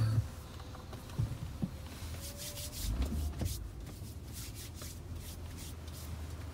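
Ryko Softgloss XS2 automatic car wash starting its cycle, heard from inside the car's cabin: a few knocks and short hisses of spray, then a low steady machine hum sets in about three seconds in.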